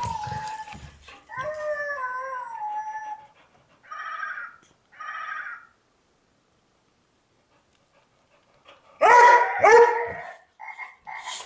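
Pet Qwerks Animal Sounds Babble Ball playing recorded animal calls as it is rolled inside a Hol-ee Roller cage ball. The calls come in short separate bursts, some with falling pitch, then stop for about three seconds, and the loudest call comes about nine seconds in.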